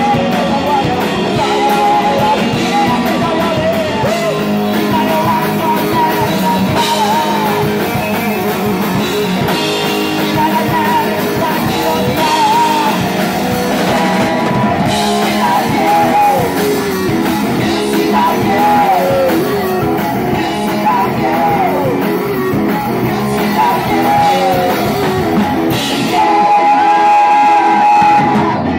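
Live rock trio playing: electric bass, electric guitar and drum kit through the club's amplifiers, with the bassist singing and shouting into a microphone over them. The band plays on without a break and gets a little louder near the end.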